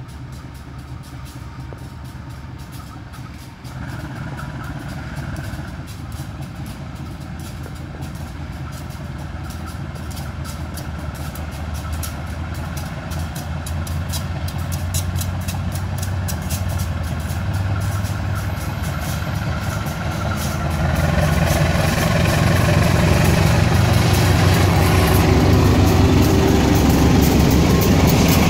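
CC 201 diesel-electric locomotive pulling a local train away from the station, its diesel engine running under load. It grows steadily louder as it approaches and is loudest near the end as it passes close by.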